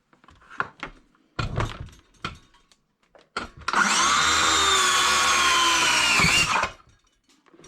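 A few knocks and clicks of handling, then a handheld power tool runs for about three seconds. Its motor whine sags slightly in pitch near the end as it works into the oven's plastic housing, then stops.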